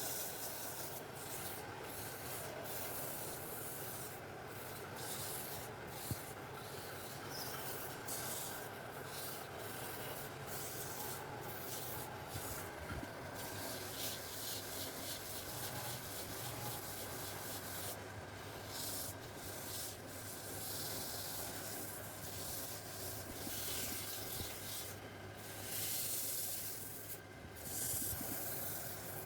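Wood being sanded: a steady rubbing hiss that breaks off briefly many times.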